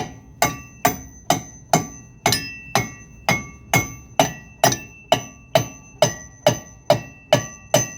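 A hammer strikes a new golf cart wheel hub steadily, about two ringing metal-on-metal blows a second, driving the hub onto the spindle of a 1998 EZGO.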